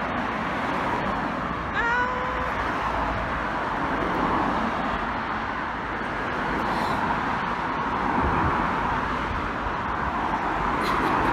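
Steady road traffic noise from cars driving along a busy multi-lane road, swelling as vehicles pass. There is a brief falling whistle about two seconds in.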